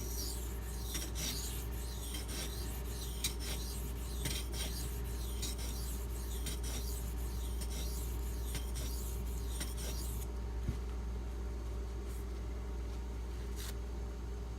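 Maxamet steel knife blade stroked across a silicon carbide sharpening stone, a gritty scraping stroke about once a second, stopping about ten seconds in. The blade is being worked to even out an edge section that the stone had been missing.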